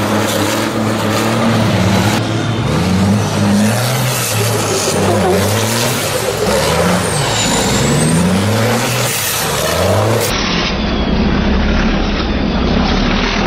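Race truck's diesel engine being driven hard, revving up and down again and again, with a high whistle dipping and rising around the middle. The sound changes abruptly about ten seconds in.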